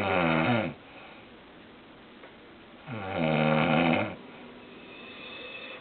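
A person snoring: one snore ends just under a second in, and a second snore of about a second comes some three seconds in, each a rough, pitched rasp on the in-breath rhythm.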